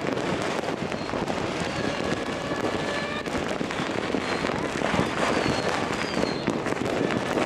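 New Year's fireworks and firecrackers going off in great numbers across a city: a dense, continuous crackle of pops and bangs with no break, with a few faint high whistles now and then.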